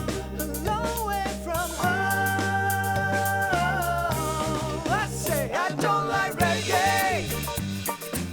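Full band playing a reggae-style song: bass, drums and a lead melody line of held, wavering notes that bend and swoop more in the second half.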